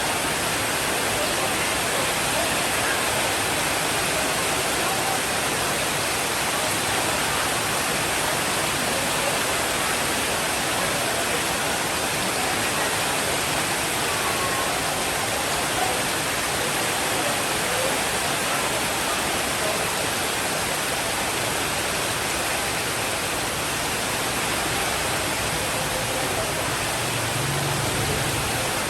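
Steady rainfall, a dense, even hiss without breaks.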